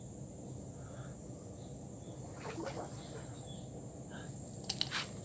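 Steady high-pitched insect trill over quiet shore ambience, with a few sharp clicks near the end.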